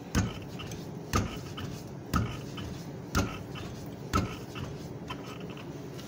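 Five evenly spaced knocks, about one a second, each ringing briefly, as a stuck wheel on a Chevy Aveo is struck from behind to free it from the hub.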